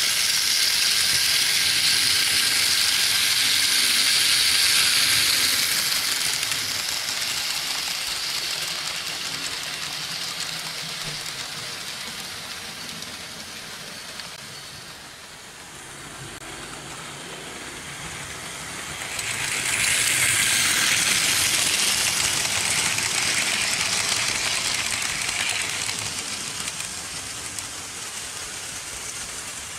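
Märklin H0 model trains running on metal M track, a steady rush of wheel and motor noise. It swells as a train passes close, fades away by the middle, and swells again about two-thirds of the way through before dying down.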